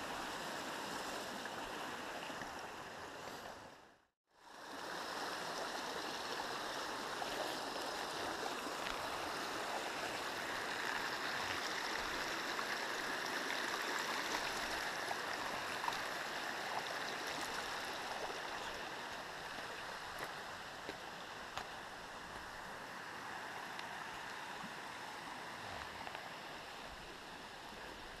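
Rocky mountain stream rushing over stones, a steady hiss of running water. It drops out to silence for a moment about four seconds in and grows a little softer toward the end.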